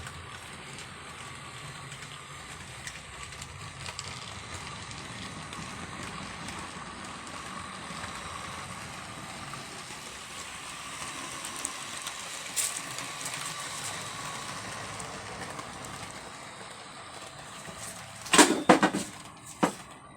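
HO scale model train running on the layout track, a steady rolling hum with a faint thin whine. Near the end comes a burst of loud knocks and clatter as objects are knocked over.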